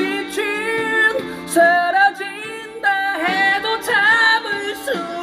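A 1990s Korean rock ballad sung as karaoke over its backing track, with long, high held vocal notes that waver with vibrato.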